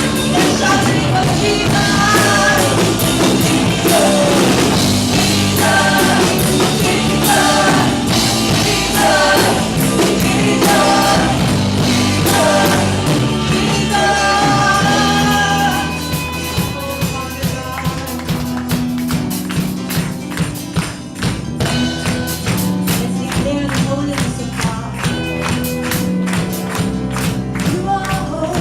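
Live church worship band with a singer leading a praise song. About halfway the singing drops out and the band plays on with a steady drum beat.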